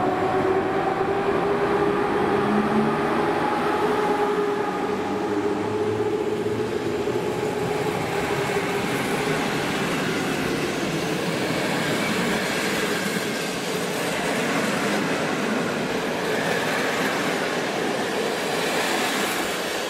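A train passing through a station: a steady rush of wheels on rails, with a pitched whine over the first eight seconds or so that then fades into the running noise.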